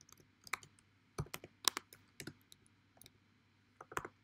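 Computer keyboard typing: scattered, irregular key clicks.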